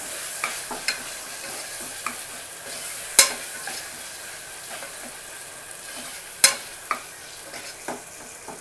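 Onion and ginger-garlic paste sizzling as it fries in oil in an aluminium pressure cooker, stirred with a metal spoon that scrapes and taps against the pot. There are a few light clicks and two sharper knocks, about three seconds in and again past six.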